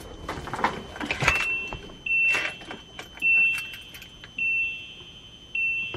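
Ignition keys jingling in the RV's ignition, then the dashboard warning chime beeping steadily, long beeps about once a second, with no cranking from the starter: the engine is getting nothing when the key is turned.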